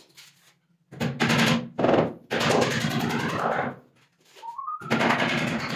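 Handheld power driver running in four bursts of roughly half a second to a second and a half, with a fast rattling hammer over its motor hum, as it drives screws into the wooden wardrobe carcass.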